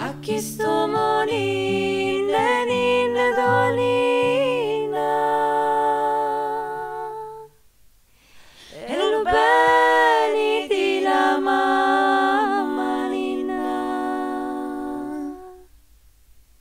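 Music: a voice singing long held notes, at first over low sustained instrumental notes. The singing breaks off about halfway through, then a second sung phrase follows and stops near the end.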